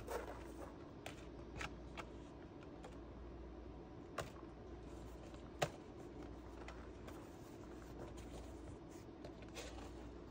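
Cardboard boxes and packed parts being handled and shifted in a wooden shipping crate: scattered light knocks and rustles, with one sharper knock about five and a half seconds in, over a faint steady low hum.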